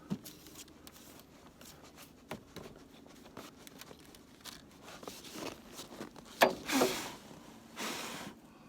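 Snow being brushed and scraped off a car battery's terminals by hand: scattered light scratches and clicks, then two louder brushing swishes near the end.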